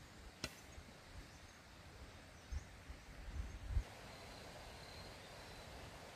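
Faint rural outdoor ambience with distant bird chirps. A single sharp click comes about half a second in, a few low thumps follow between about two and a half and four seconds in, and a faint steady high tone runs after that.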